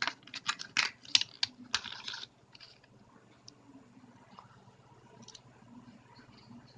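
The plastic packet of a USB Bluetooth adapter crackling in a quick run of sharp clicks as it is opened by hand, stopping about two seconds in; after that only faint room noise.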